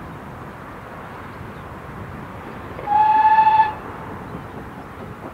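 Steam whistle of BR Standard 4MT tank locomotive No. 80104 giving one short, clear note of just under a second, about three seconds in, over steady background noise.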